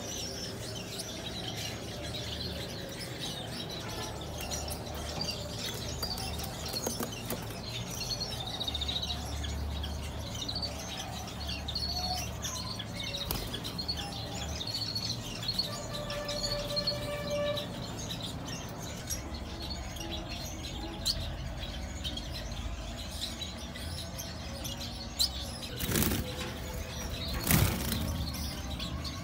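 Small cage birds in an aviary chirping and twittering steadily, with wings fluttering at times. Two louder knocks come near the end.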